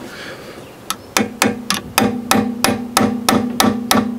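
Hammer blows on a steel punch driving out the rear brake caliper's pad-retaining wedge, starting about a second in and going on at a steady three or so strikes a second, each with a metallic ring. The wedge is stuck hard, which he puts down to it probably being held in with rust.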